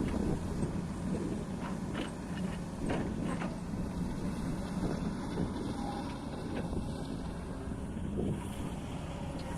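Kobelco hydraulic excavator's diesel engine running steadily, with a few short knocks in the first few seconds.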